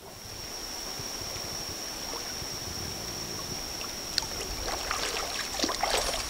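A large pla pluang (soro brook carp) splashing in shallow stream water as it is released by hand. A burst of irregular splashes comes in the last couple of seconds. A steady high-pitched whine runs throughout.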